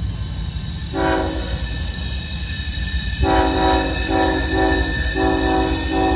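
Nathan K5HL five-chime air horn on a CSX ES44AH locomotive sounding: a short blast about a second in, then from about three seconds in a string of blasts with brief breaks between them, over the low rumble of the passing train.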